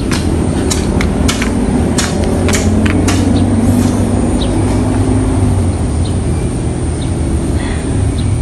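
A motor engine running steadily with a low hum, with irregular sharp clicks over it, about two a second in the first few seconds.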